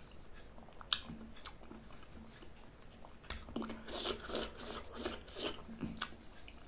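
Close-up mouth sounds of a person eating a piece of soft, ripe yellow fruit: a single small click about a second in, then from about halfway a run of irregular wet chewing and lip-smacking.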